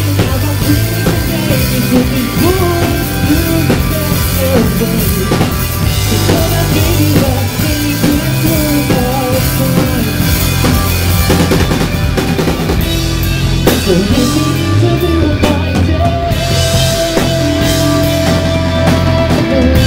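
A rock band playing live, loud and close on a camcorder's built-in microphone: drum kit, bass and electric guitar under a male lead singer. The melody holds one long steady note near the end.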